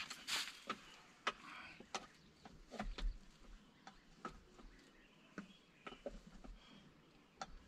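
Faint, scattered clicks and light knocks, about one or two a second, from a bowl and other things being handled.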